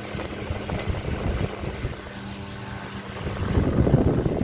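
Antique Westinghouse brass-bladed table fan running, its airflow buffeting the microphone as a ragged rumble that grows louder near the end.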